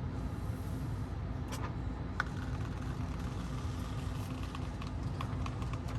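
Steady low hum with a constant low tone inside a parked car's cabin, with two faint light clicks in the first half.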